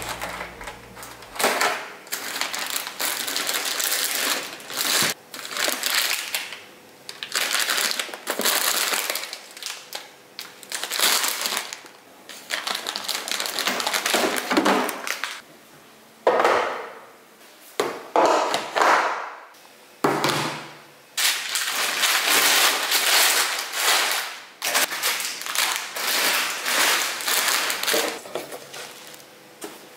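Plastic food packets, bags of dried noodles and snacks, crinkling and crackling in repeated irregular bursts with short pauses as they are lifted out of a kitchen drawer and set down on a countertop.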